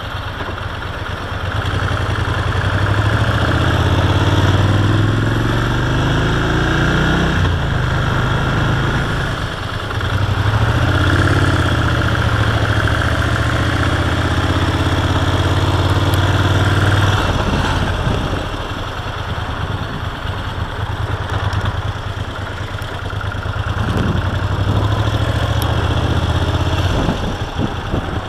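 2006 Moto Guzzi Breva 1100's air-cooled transverse V-twin accelerating twice, its pitch rising each time, then dropping to a lower, quieter run about two-thirds of the way through as the bike slows.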